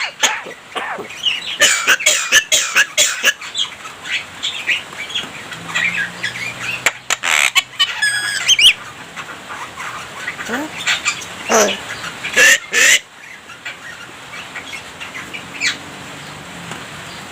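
Javan myna singing a varied, chattering song of short whistles, clicks and harsh squawking calls, with a quick rattling run of rising notes about halfway through.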